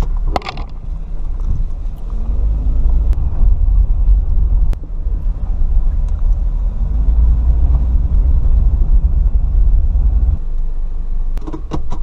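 Toyota being driven, heard from inside the cabin: engine and road noise running low and steady, with the engine pitch rising a couple of times as it picks up speed, then falling away about ten seconds in as the car slows. No exhaust tick: the leaking exhaust flange gaskets have just been replaced.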